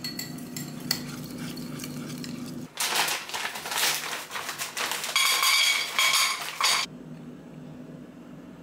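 Wire whisk clicking against a ceramic ramekin as dumpling dough is mixed. About three seconds in, a plastic bag of frozen fruit crinkles loudly for about four seconds, then it goes quiet.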